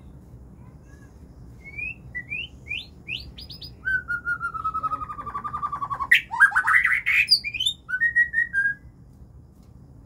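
White-rumped shama (murai batu) singing: a run of quick rising whistles, then a long slowly falling trilled note, then a loud burst of rapid varied notes and a short closing phrase.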